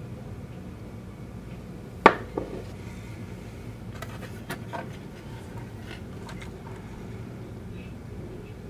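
Hands handling a plastic model train body shell on a workbench: one sharp knock about two seconds in with a smaller one just after, then a few light clicks, over a steady low hum.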